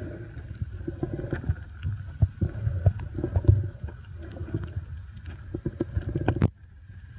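Underwater sound picked up by a compact camera inside a soft waterproof pouch: a low, uneven rumble of water moving around it, with many short clicks and knocks as the pouch is handled. The sound drops off suddenly about six and a half seconds in.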